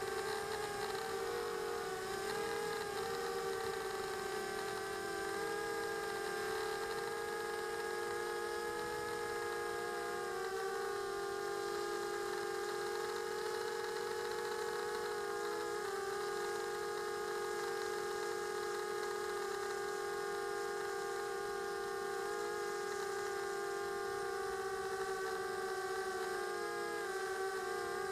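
Quadcopter's electric motors and propellers whining steadily in flight, heard from the camera on the quad itself. The pitch wavers with throttle and dips briefly several times.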